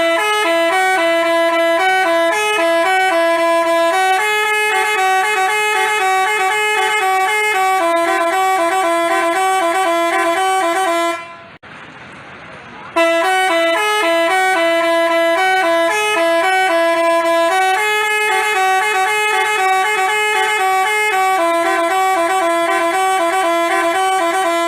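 Basuri-type 'telolet' musical bus horn playing a multi-note tune of loud, quickly stepping horn tones. It breaks off briefly about halfway through and plays the same tune again.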